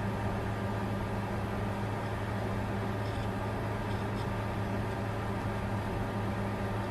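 Bitcoin mining computer running: a steady, even whir of cooling fans over a constant low hum.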